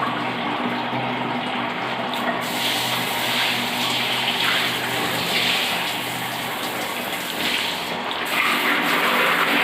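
Water running steadily through bathroom plumbing, with a low steady hum underneath.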